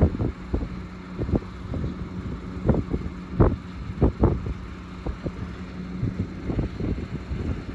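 Wind buffeting the microphone in irregular gusts and flaps, over a steady low hum.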